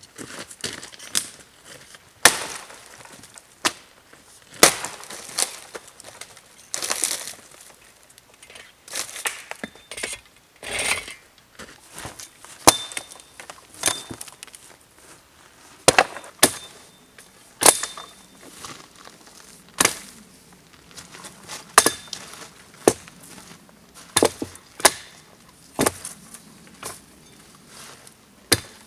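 Hatchet chopping into a log: a run of sharp, irregular knocks and cracks, roughly one every second or two.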